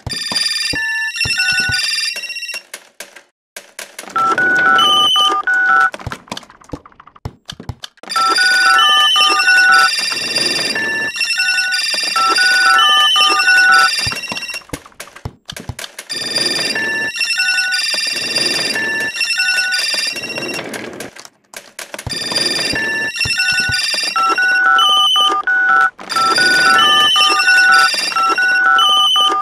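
Electronic telephone-style ringtone: short steady beeps stepping up and down in pitch in repeated melodic phrases, with brief pauses between phrases.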